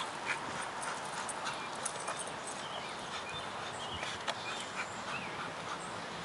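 A dog running and jumping on bare dirt: scattered soft footfalls and small knocks as it plays with a hanging inner tube.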